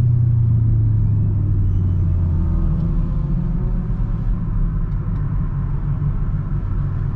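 Chevrolet Camaro V8 exhaust, its note falling steadily over the first three seconds as the revs drop off, then settling into an uneven, lumpy rumble at low revs.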